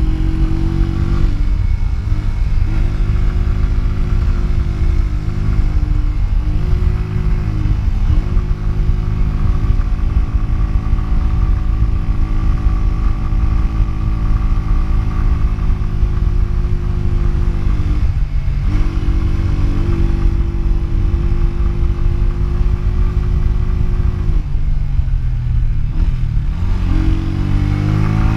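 Honda CG125's air-cooled single-cylinder four-stroke engine running under throttle at speed, heard from on the bike, with wind rushing over the microphone. The engine note dips briefly a few times, and near the end it falls away and then climbs again.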